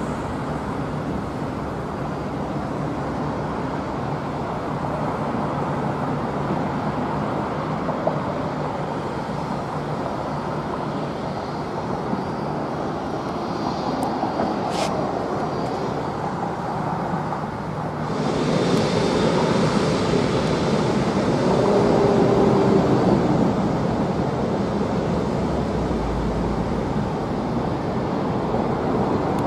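Jet airliner engines running at taxi power: a steady rumble with a faint whine. About 18 seconds in, the sound switches abruptly to a louder, brighter jet noise as the Airbus A380's four turbofans come near.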